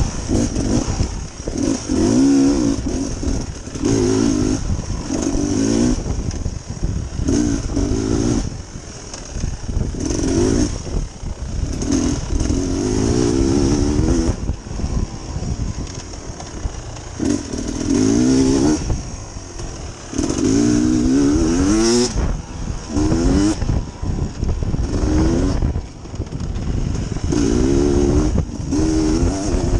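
Off-road dirt bike engine revving in repeated throttle bursts, rising in pitch with each burst and dropping back between them, as the bike is ridden along a singletrack trail.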